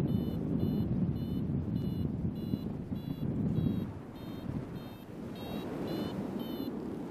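Paragliding variometer beeping about twice a second, signalling that the glider is climbing in weak lift. A steady rush of wind over the microphone runs beneath the beeps and is louder than they are.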